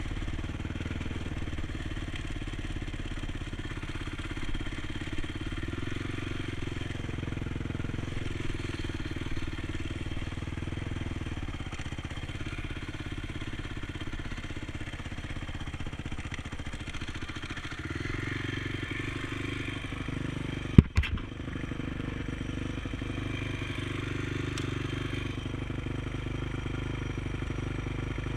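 Honda TRX450 sport quad's single-cylinder four-stroke engine running steadily while riding on a dirt track. The engine note shifts a little past halfway, and a single sharp knock comes about three-quarters of the way through.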